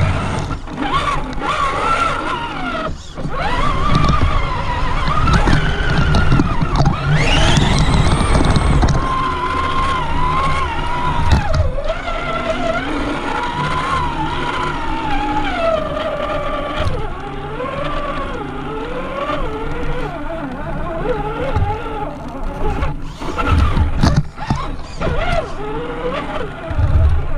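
Brushed electric motor and gearbox of a Traxxas Summit RC truck whining, the pitch rising and falling with the throttle and climbing sharply about a quarter of the way in. Low rumble and a few knocks come from the truck driving over rough ground.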